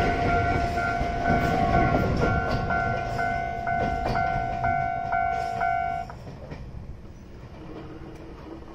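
A Japanese level-crossing alarm rings its rapid electronic ding-ding, about three strokes a second, over the low rumble of an Iyotetsu electric train pulling away. The alarm cuts off suddenly about six seconds in, leaving the train's fainter running rumble.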